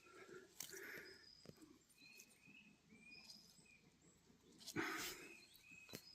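Faint forest ambience: a bird calling with short, repeated high chirps, with scattered soft rustles and a louder rustle of dry leaves about five seconds in.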